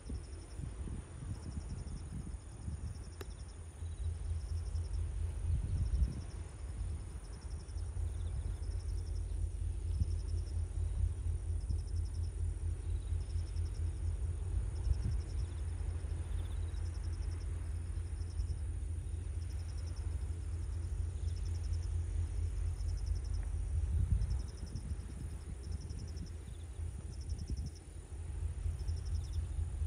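Insects chirping in short pulsed trills, one every second or two, over a low uneven rumble of wind on the microphone.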